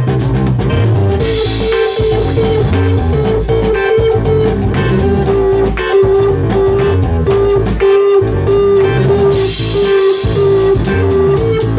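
Loud live music with electric guitar, bass and drums; a held lead note moves back and forth between two pitches over a steady beat.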